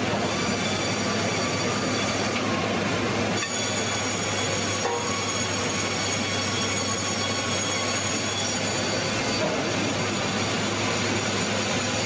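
Sawmill band saw and machinery running steadily: a dense, even noise with several high, steady whining tones over it.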